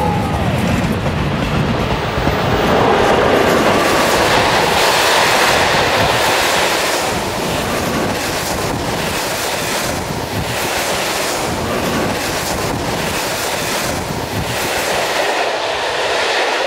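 A train running past, its wheels clattering in a rhythm over the rail joints.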